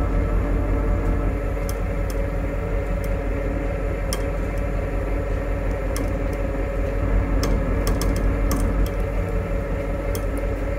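Engine idling steadily, with scattered faint clicks and ticks over it.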